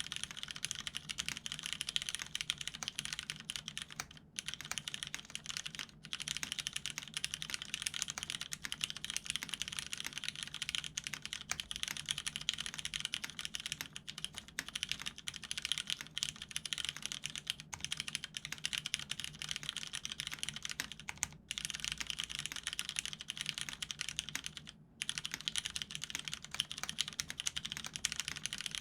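Continuous fast typing on a custom mechanical keyboard with lubed vintage Cherry MX Brown tactile switches in an aluminium plate, under Cherry dye-sub keycaps: a dense patter of key presses, broken by short pauses about 4, 6, 21 and 25 seconds in.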